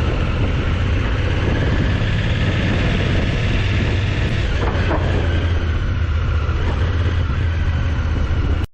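Steady low drone of a ferry's diesel engines with a rushing noise over it, cutting off abruptly near the end.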